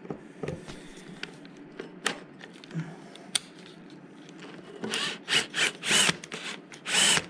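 Cordless screwdriver working the screws of the airbox cover on a Kawasaki ZX-10R, running in several short whirring bursts from about five seconds in. Scattered small clicks and knocks of tool handling come before.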